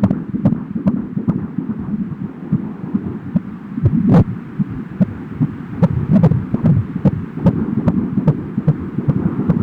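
Fetal heartbeat heard through an Angel Sounds home fetal Doppler: a fast, steady pulsing beat at about two and a half beats a second, with one louder crackle about four seconds in.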